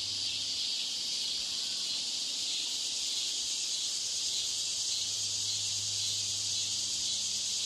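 Steady high-pitched hiss of ambient background noise mixed under the test audio, even and unbroken, with a faint low hum beneath.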